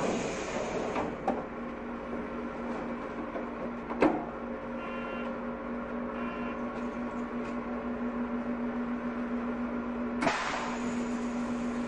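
Steady electrical hum from a stationary Shin-Keisei 200-series electric train's onboard equipment, heard from the cab. A hiss dies away at the start, a few sharp clicks sound, and a loud click followed by a short burst of air hiss comes about ten seconds in.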